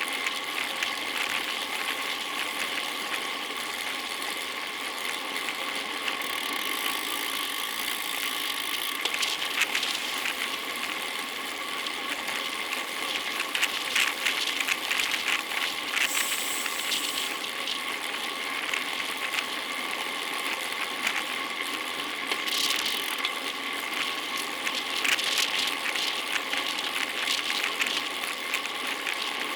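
Road bicycle on the move, with a steady mechanical whir and many irregular clicks from the drivetrain, like a freehub ratcheting while coasting.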